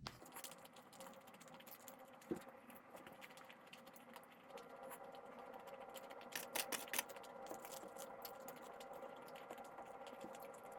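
Computer keyboard typing: irregular key clicks with a brief run of louder taps about six and a half seconds in, over a faint steady hum.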